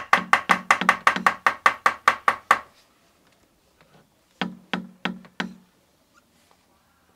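Hammer knocking on a wooden toboggan to repair it. A quick run of about fourteen blows comes first, then after a pause a few seconds in, four more.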